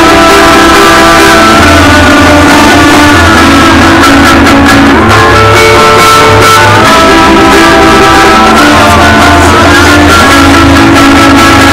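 Rock band playing loudly in a practice room: electric guitars and bass, with held chords that change every second or two.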